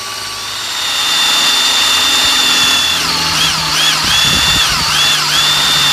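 DeWalt cordless drill running a 3/8 inch twist bit through a flat metal bar. The motor whine holds steady, then its pitch drops and recovers several times in the middle as the speed dips, and it runs steady again near the end.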